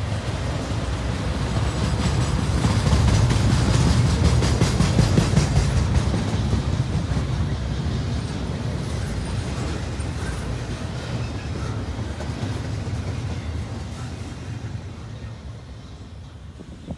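Norfolk Southern freight train rolling past, its wheels clacking over the rails. It is loudest a few seconds in, then fades steadily as it moves away.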